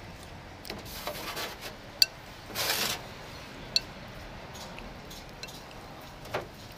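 Light clinks and handling noise close to the microphone: two sharp clinks, about two seconds in and again near four seconds, a short rustle between them, and a soft knock near the end.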